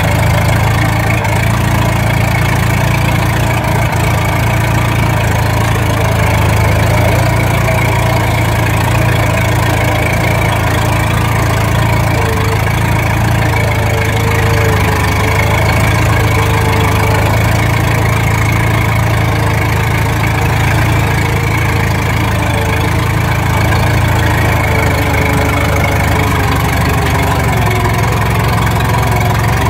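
Steel-wheeled Case tractor's engine running steadily under load as it drags a weighted sled on a chain in a tractor pull.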